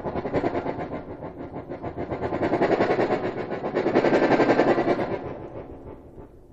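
Bayan (Russian button accordion) sounding a low cluster chord with rapid bellows-shake tremolo, so the chord comes as a fast pulsing stream. It swells and ebbs in waves, loudest about four seconds in, then fades away near the end.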